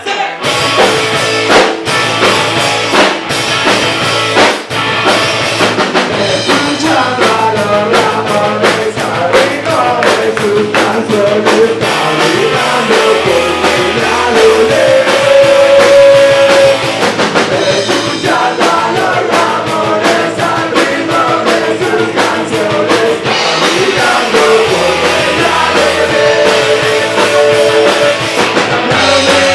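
Punk rock band playing live: distorted electric guitar, electric bass and drum kit driving a fast beat, with a male voice singing over the top.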